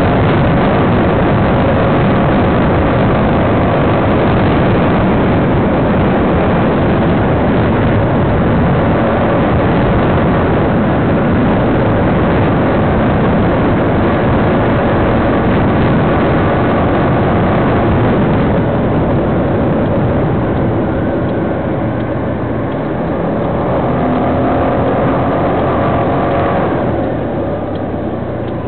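Steady engine, road and wind noise of a vehicle driving through city traffic, heard through a low-quality camera microphone. It gets quieter near the end as the vehicle slows.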